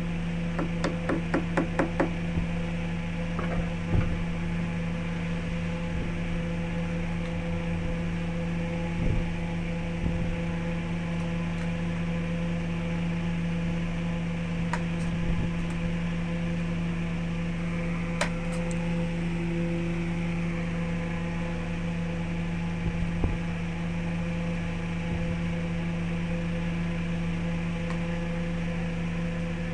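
Wood lathe motor running steadily with a hum. A quick run of ticks comes in the first couple of seconds, and single knocks sound now and then.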